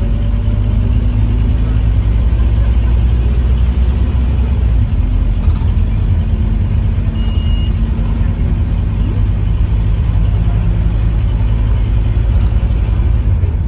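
Scania OmniLink K230UB bus under way, heard from inside near the rear: a steady low rumble from the diesel engine and ZF automatic gearbox, with a faint droning hum, at fairly even speed.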